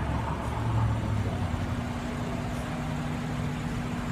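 Steady low vehicle engine hum with a constant drone, the rumble a little stronger in the first second or so.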